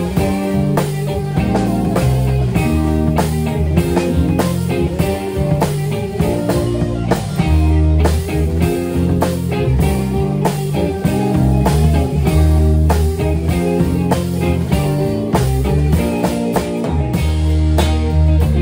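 A J-rock band playing live, with guitar and a drum kit keeping a steady beat.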